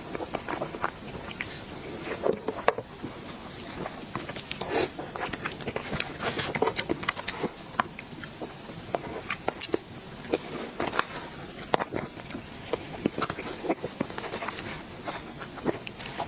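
Close-up sounds of a person eating a soft dessert: biting and wet chewing, with many small, irregular mouth clicks.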